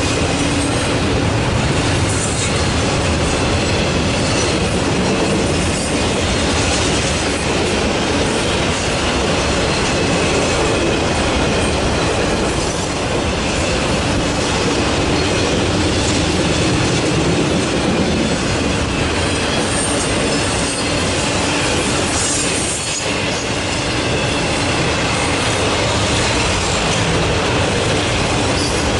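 Freight train cars rolling steadily past, wheels running over the rail with clickety-clack and a thin high wheel squeal.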